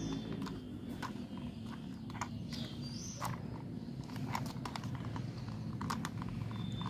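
Hard plastic toy car body parts handled and pressed together: irregular light clicks and knocks as the plastic snap-lock tabs are pushed into place.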